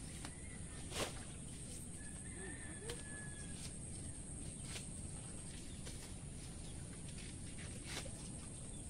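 Taro stalks being snapped and pulled by hand: four sharp snaps a couple of seconds apart, the first the loudest, over a steady high hiss. A brief animal call comes near the middle.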